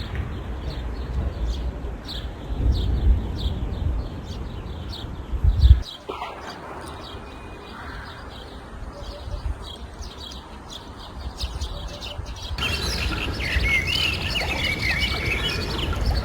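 Small birds chirping in a quick run of short repeated calls over a low rumble. The sound cuts off abruptly twice, and near the end a livelier, warbling birdsong comes in.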